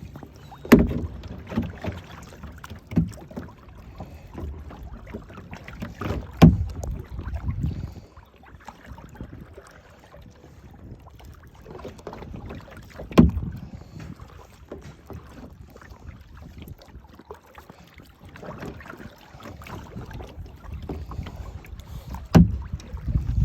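Kayak paddling picked up by a phone lying in the kayak: water sloshing and rumbling against the hull, with a few sharp knocks spread through the stretch and some wind on the microphone.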